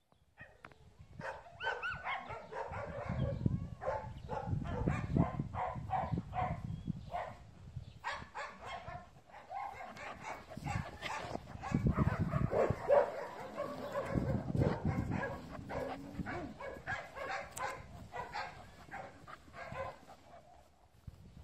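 A dog vocalizing in repeated short bursts of barks and whines, over a low rumbling noise from the handheld microphone moving about.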